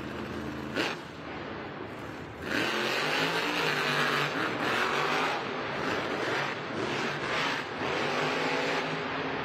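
Son-uva Digger monster truck's supercharged V8 running at idle, with a brief sharp blip less than a second in. About two and a half seconds in it revs hard and loud as the truck launches, the engine pitch rising and falling with the throttle.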